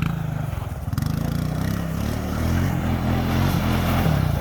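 Quad (ATV) engine running under way, its pitch rising and falling a little in the middle as the throttle changes.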